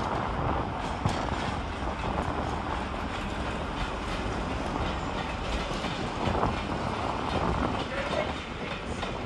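A train moving along the track: steady running noise with occasional clicks from the wheels on the rails.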